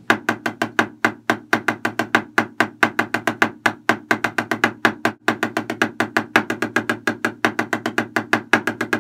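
Wooden drumsticks striking a drum in an even stream of single strokes, about seven a second. This is a one-hand speed exercise at 112 BPM: four sixteenth notes and a triplet with the right hand, then the same with the left.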